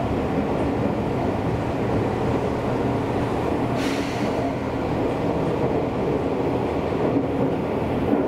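Seibu Railway electric commuter train running, heard from inside the car: a steady noise of the wheels on the rails and the running gear, with a brief hiss about four seconds in.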